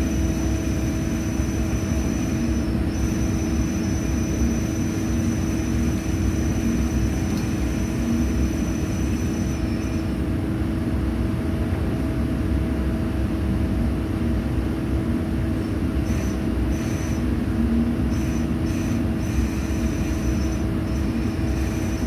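Steady drone of drilling rig machinery running on the rig floor: a constant hum at one pitch, with a faint high whine that comes and goes in the second half.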